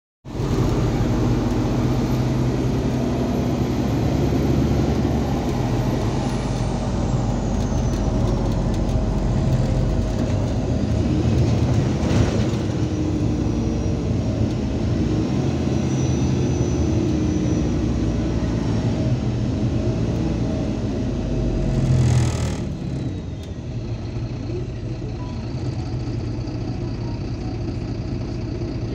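MAZ 203 city bus heard from inside the passenger cabin: engine and road noise as it drives, with a high whine falling in pitch a few seconds in. About 22 seconds in comes a short hiss of air, after which the sound settles lower and steadier as the bus slows for a stop.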